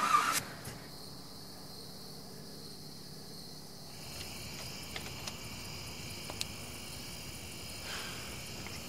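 Crickets chirring steadily, the high trill growing stronger about four seconds in, after a brief noise right at the start.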